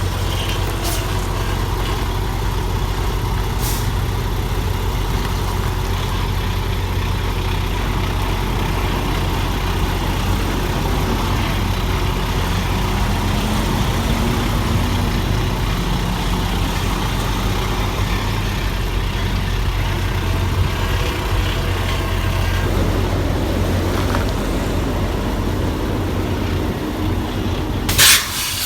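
Semi-truck's diesel engine running steadily at low revs. Near the end there is a brief burst of hiss.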